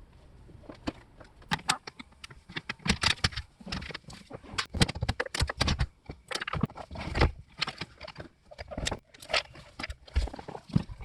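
Rapid, irregular clicking, knocking and rattling of hands and tools working loose plastic trim and speaker hardware in a car door.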